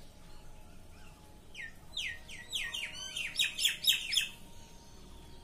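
A small songbird calling: a quick run of about a dozen sharp, high, downward-sweeping chirps lasting nearly three seconds, starting about one and a half seconds in and loudest near the end of the run.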